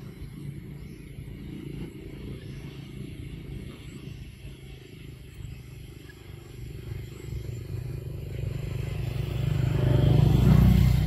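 A motor vehicle's engine running steadily in the background, growing louder near the end as it passes close by.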